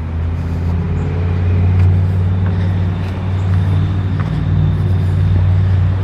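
A motor vehicle's engine running close by: a loud, steady low hum that swells up at the start and holds.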